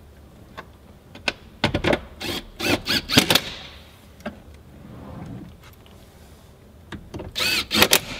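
Cordless drill-driver run in short bursts to drive screws, its motor whine rising and falling in pitch with each pull of the trigger: a cluster of bursts about two to three and a half seconds in, and another shorter cluster near the end.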